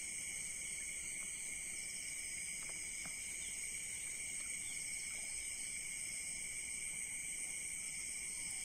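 Steady night chorus of crickets and other insects, several high-pitched trills holding on together, with a few faint ticks.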